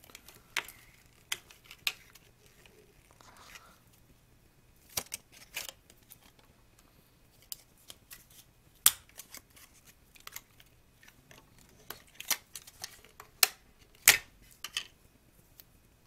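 Crinkles and sharp clicks of a small clear plastic bag being handled and pulled off an Apple USB power adapter. The snaps come irregularly, the loudest about nine and fourteen seconds in.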